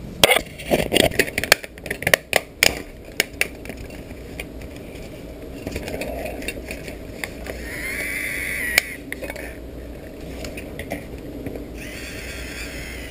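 Hard plastic parts of a Loona robot clicking and knocking together as its right side cover is handled and fitted, a rapid run of clicks in the first few seconds. Later a short whine comes twice, once about eight seconds in and again near the end.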